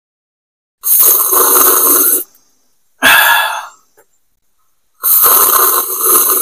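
A man slurping coffee from a mug in three loud, noisy draws: a long one about a second in, a short one at about three seconds, and another long one near the end.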